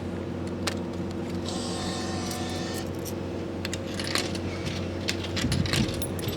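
Steady electrical hum of a vending machine, with scattered small clicks and clinks of coins being handled and fed in, and a brief whirring hiss about one and a half seconds in.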